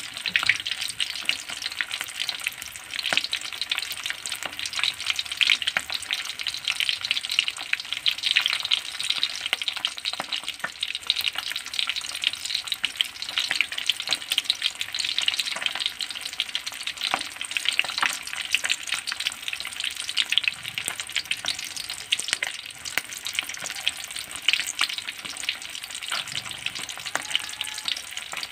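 Milkfish frying in shallow hot oil in a metal wok: steady sizzling with many small crackles and pops throughout. The fish is nearly done, browned and its moisture mostly cooked off.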